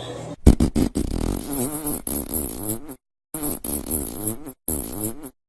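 A baby farting: several short sputtering bursts, some with a wavering pitch, broken by sudden cuts to silence.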